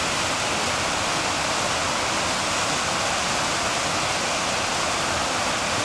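Small mountain stream cascading over rocks: a steady rush of water.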